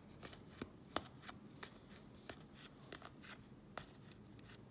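Baseball trading cards being flipped through one at a time: a quick run of soft clicks and swishes, about three a second, as each card slides off the stack, with a sharper click about a second in.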